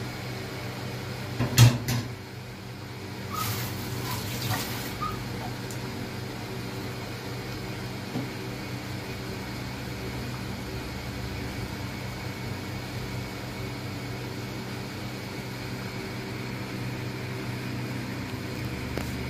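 Induction cooktop humming steadily with its cooling fan running while it heats a pan of simmering dal. About a second and a half in, a metal spatula knocks sharply against the pan, and a short scraping follows a couple of seconds later.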